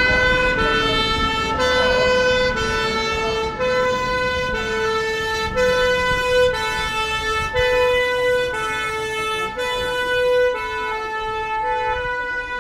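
French fire engine's two-tone siren (the "pin-pon" deux-tons), alternating steadily between a higher and a lower note about once a second.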